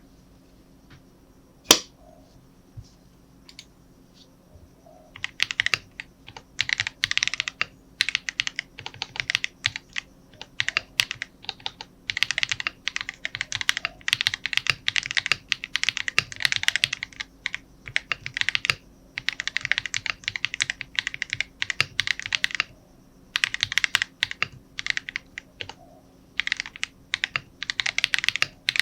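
Typing on an Epomaker Mini Cat 64 keyboard modded with an IXPE switch pad and Krytox-lubed Radiant Red switches and stabilizers. One sharp click comes about two seconds in, then runs of rapid keystrokes from about five seconds on, broken by short pauses.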